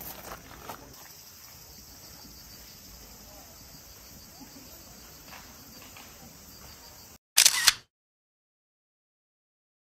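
Steady high insect drone over quiet outdoor ambience, with a few faint footsteps on gravel at the start. About seven seconds in comes a loud camera-shutter click sound effect with a double snap, and the sound then cuts to dead silence.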